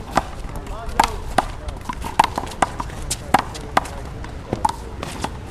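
Sharp smacks of a rally in one-wall handball: the small rubber ball struck by open hands, hitting the concrete wall and bouncing on the court, about ten irregular cracks in a few seconds.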